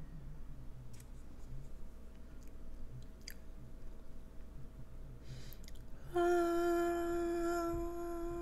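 Quiet chewing of a mouthful of slider, with a few soft clicks. About six seconds in, a steady hummed 'mmm' comes in and is held for over two seconds, the loudest sound.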